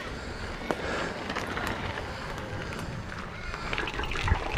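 Bicycle riding over a dirt-and-gravel trail: a steady low rumble of wind on the microphone, with tyres crunching and the bike rattling over the rough ground, the rattles growing busier and louder near the end.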